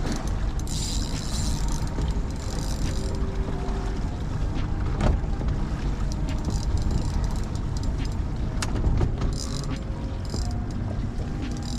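Steady low rumble of wind and water around a small fishing boat, with a few sharp clicks and some short hissing bursts.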